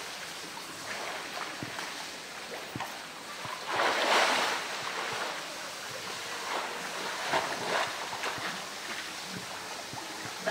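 Pool water splashing and sloshing as a polar bear plays with a floating blue plastic tank, with one big splash about four seconds in and smaller splashes a few seconds later.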